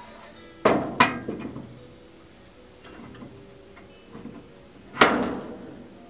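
Steel CPU-holder bracket knocking against the desk as it is positioned under it. There are two sharp knocks in quick succession near the start and a louder one about five seconds in, each ringing briefly.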